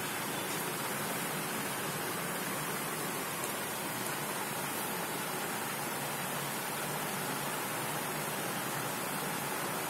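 Steady, even hiss that does not change, with no distinct events standing out.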